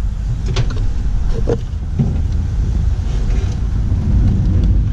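Steady, loud low mechanical rumble, with a few light clicks of metal parts being handled.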